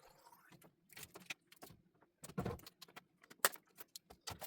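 A scattered string of light clicks, knocks and clatters of small objects being handled and set down, with two louder knocks about two and a half and three and a half seconds in.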